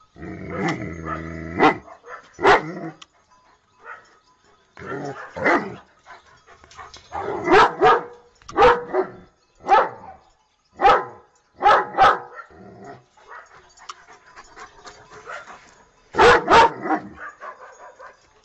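German Shepherd barking: about a dozen loud, separate barks in irregular runs, the first ones drawn out, with a quick double bark near the end.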